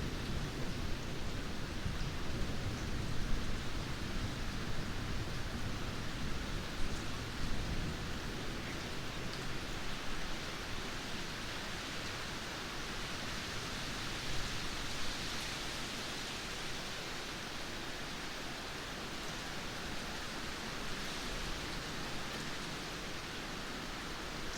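Steady light rain, an even hiss of falling drops. A low rumble dies away over the first several seconds.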